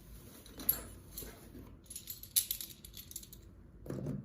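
Handling sounds: a few light, scattered clicks and clinks as a fisherman-rack accessory is fitted onto a fishing tackle box's stainless-steel mounting base.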